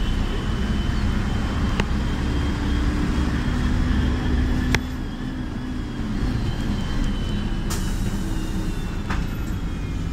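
City bus driving, its engine and road noise heard from inside the cabin as a steady low rumble. A few sharp clicks or knocks cut through it, the loudest about five seconds in, after which the rumble eases a little.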